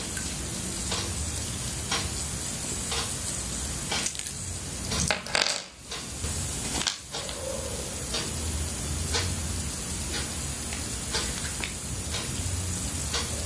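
Small metal RCA jacks and hook-up wires handled between the fingers, giving faint irregular clicks and taps over a steady hiss.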